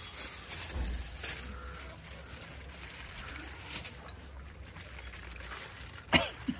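Aluminium foil crinkling and rustling as hands fold and press it around a chicken. Near the end a short, sharp pitched squeak is the loudest sound.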